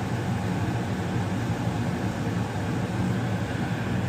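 A two-stage gas furnace running steadily in high fire. The inducer motor, the blower and the burners make an even, unbroken hum and rush.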